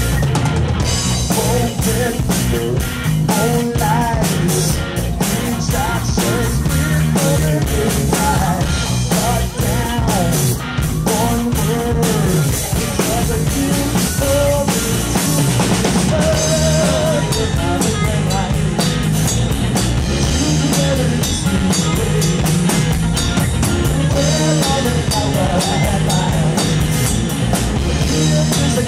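Live rock band playing: a drum kit keeping a steady beat under electric guitar, with a man singing.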